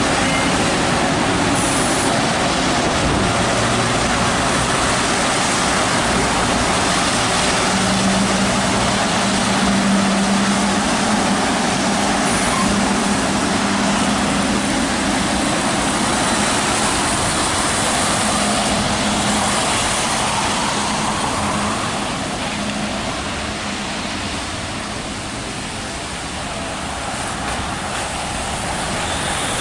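Hess Swisstrolley 3 articulated electric trolleybus standing at the stop and then pulling away, with a steady low hum over a steady hiss from the wet street. The sound eases off about two-thirds of the way through as the bus leaves.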